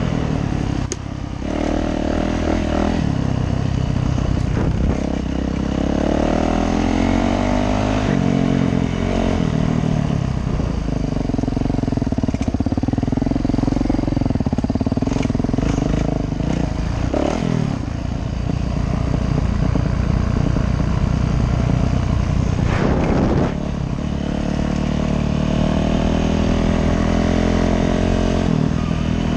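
Yamaha YZ450F's four-stroke single-cylinder engine under way, its revs rising and falling with the throttle throughout. The revs drop off briefly a few times, and there are a few short knocks.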